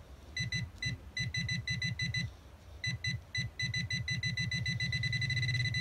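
Handheld pinpointer metal detector beeping as it picks up a 2-euro coin brought toward its side, each beep with a low buzz under it. The beeps come faster and merge into a steady tone near the end, the signal of a strong, close target.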